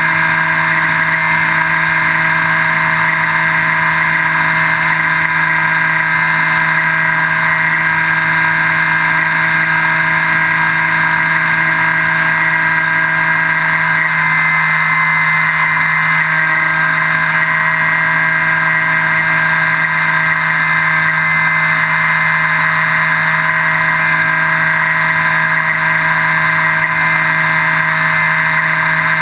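Electric brushless motor and pusher propeller of a Skywalker V3 1680 FPV plane running at steady cruise throttle, picked up by the onboard camera: a constant, unchanging whine over a rushing hiss.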